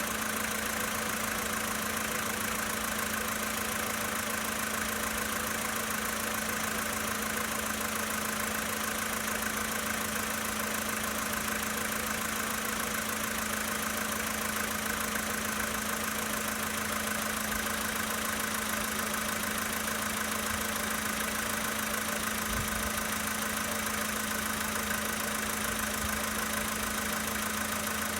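Volkswagen Polo Sedan's 1.6-litre four-cylinder petrol engine idling steadily from cold, with the engine knock that the owner is recording.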